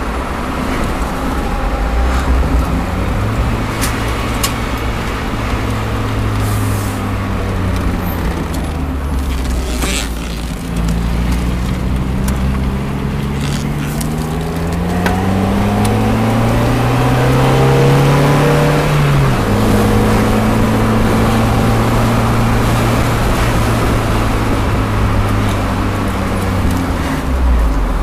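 1995 Mazda Miata's 1.8-litre four-cylinder engine and road noise, heard from inside the cabin while driving. The engine climbs in pitch for several seconds, drops suddenly at an upshift a little past the middle, then runs steady at cruising speed.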